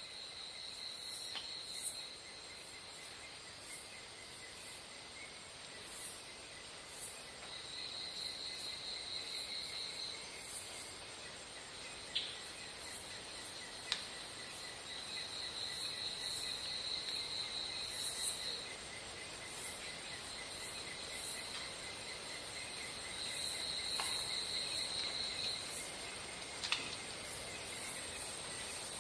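Chorus of tropical insects: a steady high-pitched whine under a trill that repeats every 7 or 8 seconds and lasts two to three seconds each time, with scattered short high chirps.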